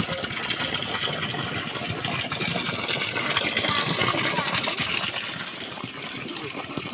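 Engine of a machine-driven borehole drilling rig running steadily as the well is flushed until the water runs clear.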